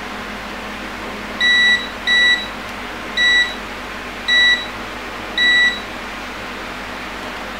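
Digital multimeter on continuity test beeping five times in short bursts as its probes touch points on the hash board, each beep marking a low-resistance connection between the probe tips. A steady fan hum runs underneath.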